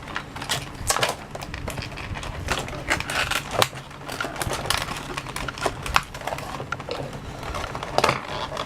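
Plastic and cardboard packaging of a diecast model car being handled and pulled apart: irregular crinkling and sharp plastic clicks and crackles.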